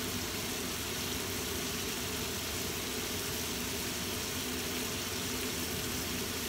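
Steady hiss and low motor-like hum at the stove as squid, tomato and petai simmer in sauce in a wok.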